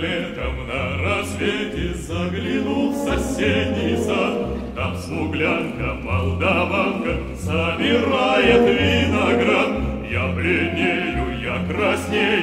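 Background music: a song with choral, operatic-style singing over an orchestra and a pulsing bass line.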